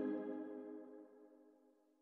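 The last chord of background music ringing out and fading away, dying out about a second in, followed by silence.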